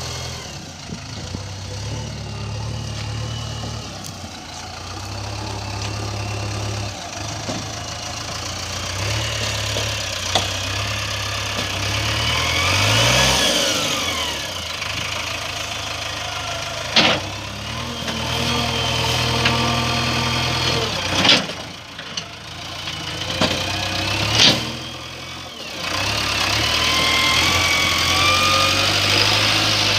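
JCB 3DX backhoe loader's diesel engine running as the machine works, its pitch rising and falling as it revs, with a higher whine above it. Three sharp clanks come in the second half.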